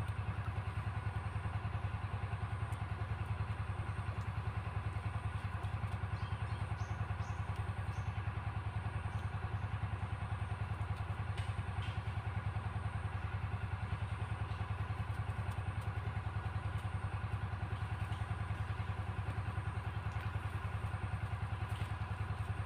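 A small engine running steadily at constant speed, a low even hum whose pitch does not change.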